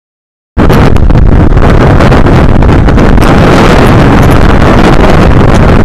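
Hurricane wind buffeting an outdoor nest camera's microphone, very loud and continuous, cutting in about half a second in.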